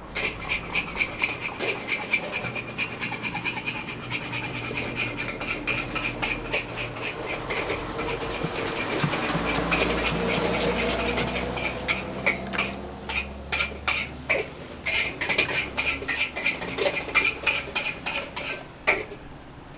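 Metal spatula scraping and clanking against a wok while mee goreng mamak is stir-fried: rapid ringing metal strikes throughout, with a hiss that swells around the middle.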